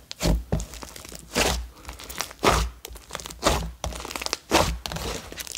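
Clay slime being folded and pressed by hand to work air into it, giving a crackly, popping burst about once a second as trapped air is squeezed through it.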